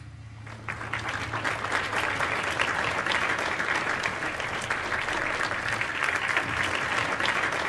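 Audience applauding: many hands clapping, building up over the first second and then holding steady.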